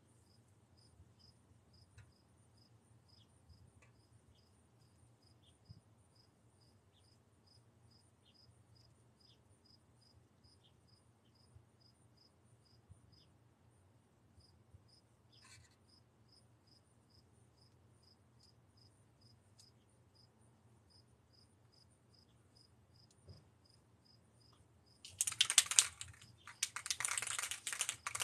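Faint, steady chirping of an insect, about two to three chirps a second. Near the end, loud bursts of hissing noise from a spray paint can, in several goes of a second or so each.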